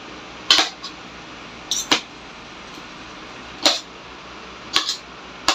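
Metal spoon and fork clinking and scraping against a ceramic plate while scooping rice, about five short sounds spread a second or so apart over a low steady background hum.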